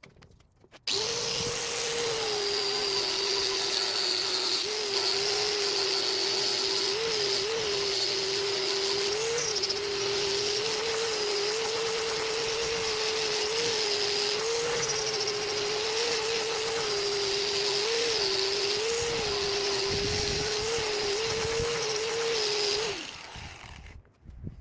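Angle grinder fitted with a 240-grit Scotch-Brite wheel, polishing the steel blade of an antique cleaver. It starts about a second in, runs with a steady whine that wavers a little in pitch, and is switched off near the end, spinning down.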